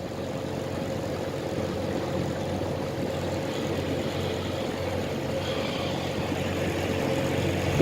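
Twin 60 hp Mercury Command Thrust four-stroke outboards running steadily at low cruising speed, a steady hum that gets a little louder near the end.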